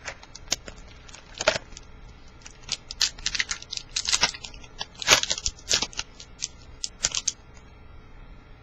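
A trading-card pack's wrapper being torn open and crinkled as the cards are pulled out: an irregular run of short crackles and rustles that stops about seven seconds in.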